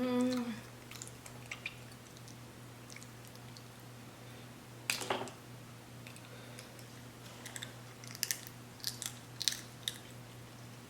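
Person chewing food close to the microphone: soft scattered smacks and clicks of the mouth, a sharper one about five seconds in and a cluster later on, after a brief hummed "mm" at the start. A steady low electrical hum runs underneath.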